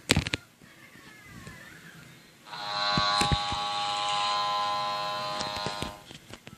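A few clicks, then Coji toy robot's speaker playing an electronic buzzing sound effect, a steady buzz held for about three and a half seconds before it cuts off.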